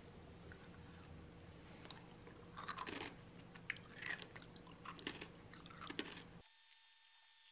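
Granola in yogurt being chewed: faint, irregular crunches from about two and a half seconds in, cutting off abruptly about six seconds in.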